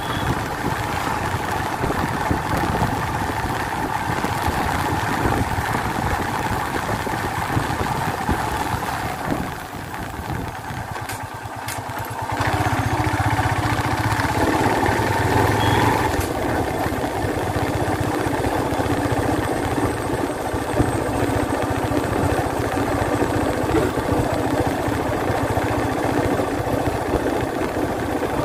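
Motorcycle engine running steadily while riding along. About ten seconds in it goes quieter for roughly three seconds, then comes back louder.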